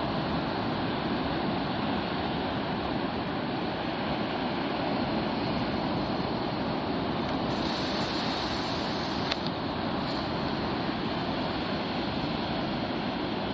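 Atlantic surf, large waves breaking and washing in, a steady rushing roar. About eight seconds in there is a brief high hiss ending in a single click.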